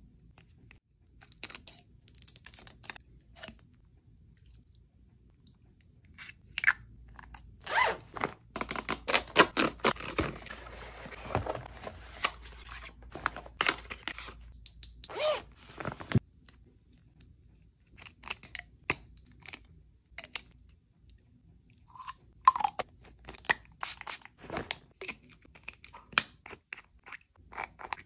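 Close-up handling of skincare products and packaging: sharp taps and clicks of small plastic bottles and cardboard boxes, with a stretch of dense crinkling and rustling of a clear plastic toiletry pouch partway through.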